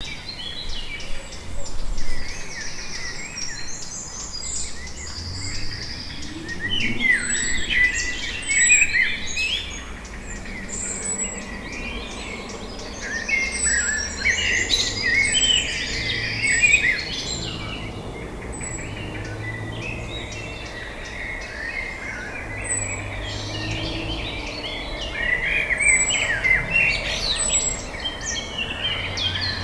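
Several songbirds singing and chirping in overlapping bouts that come and go, over a faint low background rumble.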